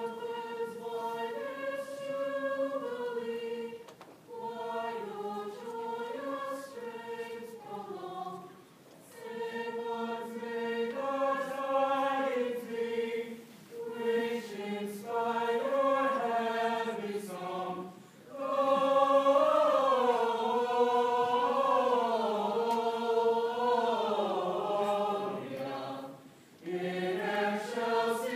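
A choir singing in long phrases with short pauses between them; the fullest, loudest phrase swells a little past the middle.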